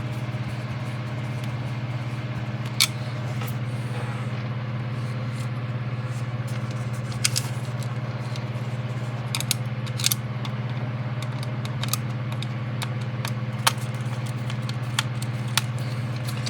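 Scattered small clicks and taps of a small screw being driven into a model section with a screwdriver, over a steady low hum.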